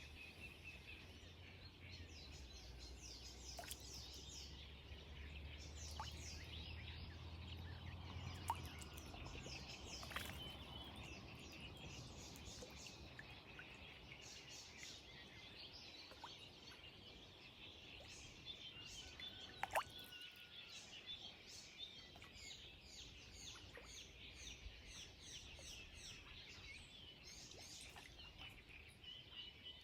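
Faint chorus of small birds chirping continuously over a low outdoor background hum. A few sharp clicks stand out, the loudest one about two-thirds of the way through.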